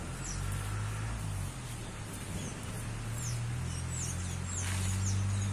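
A steady low motor hum that swells toward the end, under a string of short, high bird chirps that fall in pitch.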